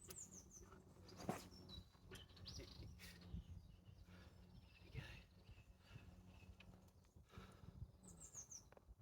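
Faint songbird calls outdoors: a quick falling run of high chirps near the start, repeated near the end, with a few other high notes between. A few brief knocks, the loudest about a second in.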